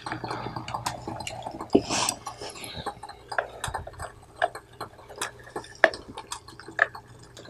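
Small plastic clicks and taps from handling a handheld digital thermometer unit while a small screwdriver adjusts its high-end calibration on the back, scattered irregularly, over a faint steady low hum.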